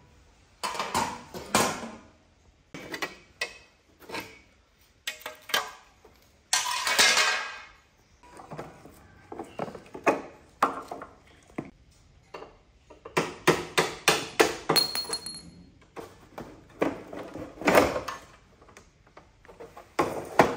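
Rusty steel motorcycle parts clanking, knocking and rattling as they are worked off the frame and set down on a tiled floor, with one longer scrape of metal about a third of the way through.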